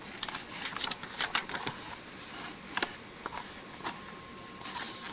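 Paper pages of a printed instruction manual rustling and crackling as they are turned and pressed flat by hand, in irregular bursts with a few single ticks.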